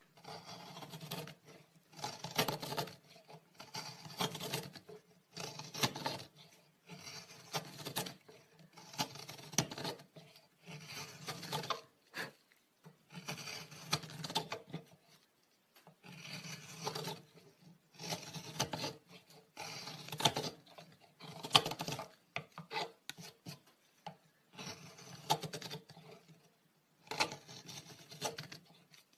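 A hand tool scraping or rasping across wood in repeated strokes, roughly one a second at an uneven pace.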